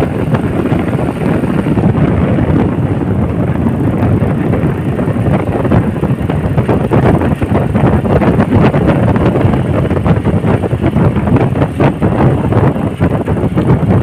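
Wind buffeting the microphone while moving along a road at speed, a steady rushing rumble that flutters throughout, with motorcycle engine and road noise underneath.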